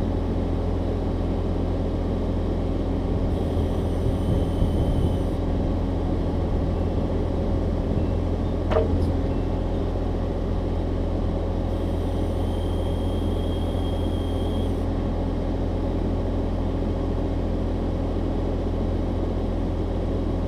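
Excavator's diesel engine running steadily, with a faint high whine coming in twice and a single sharp click about halfway through.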